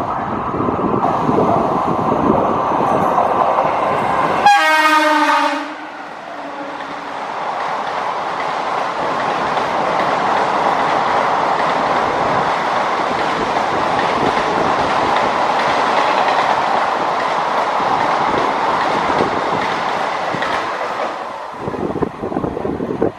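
Express passenger train hauled by a WAP-4 electric locomotive passing at speed: a rumble of approaching trains, then a brief horn blast about four and a half seconds in, followed by a long steady roar of coaches running over the rails that eases off near the end.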